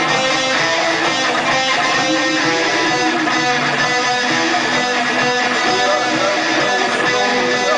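Instrumental music from a rock song cover: guitars strummed and played at a steady level, with no singing.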